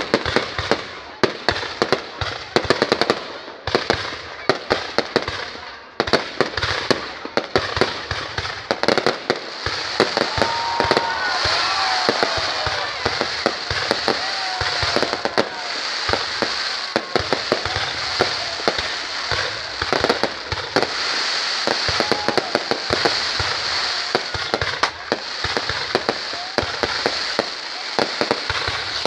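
Fireworks going off: rapid, irregular sharp bangs for the first several seconds, then merging into a dense, continuous crackling.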